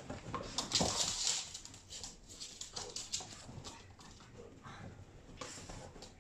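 Two Boston terriers play-fighting on a dog bed: scuffling and rustling with small dog noises, loudest about a second in, then carrying on more quietly.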